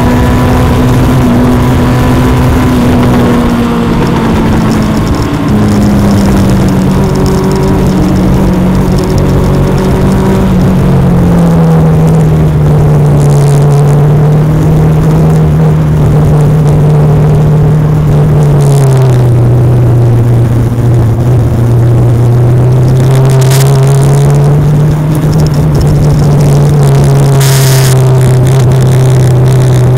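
A Legend race car's Yamaha motorcycle four-cylinder engine running hard at racing speed over wind and tyre noise. Its pitch steps down in stages over the first twenty seconds, then rises slightly and holds.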